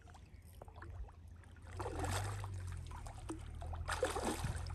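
Large hooked silver carp thrashing at the surface beside the bank, splashing in two bouts: one about two seconds in, and a sharper one near the end.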